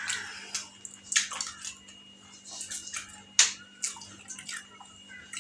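Eating fuchka (pani puri) close to the microphone: wet, liquid mouth sounds and chewing broken by a few sharp crunches of the crisp shells. The loudest crunch comes about three and a half seconds in.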